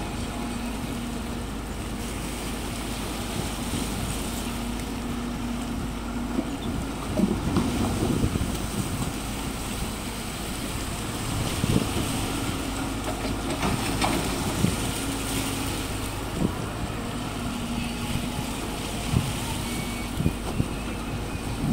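Excavator diesel engine running steadily, its note rising in stretches of a few seconds as the arm works, with scattered sharp knocks of the bucket against rock and stone in the shallow water.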